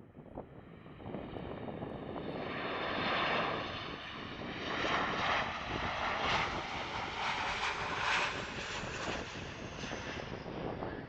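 Ryanair Boeing 737-800's CFM56 jet engines passing close by on landing: a jet roar that builds over the first couple of seconds, is loudest through the middle, and eases toward the end, with a high fan whine that falls slightly in pitch.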